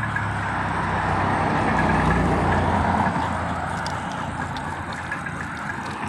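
Steady rushing road noise while moving along a road, swelling about two seconds in and easing off near the end.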